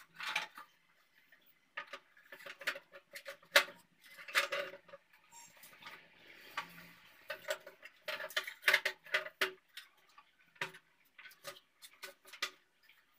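Plastic and steel kitchen containers being handled and set down on shelves: scattered light clicks and knocks, busiest about four seconds in and again around eight to nine seconds in.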